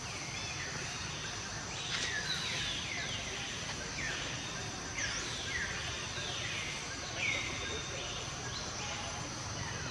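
Outdoor forest ambience: a steady high insect drone, with a string of short high chirps that each fall in pitch, coming every half second or so.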